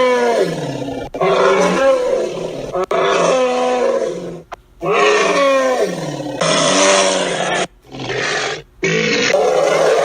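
Sound-effect calls for Deinotherium, an extinct elephant relative: a series of loud, low pitched calls, several falling in pitch, spliced one after another with abrupt cuts between them.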